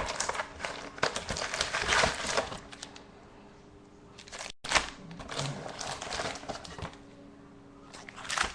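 Crinkling and rustling of packaging as a box of trading-card packs is opened and the packs are handled, busiest in the first two and a half seconds, then lighter.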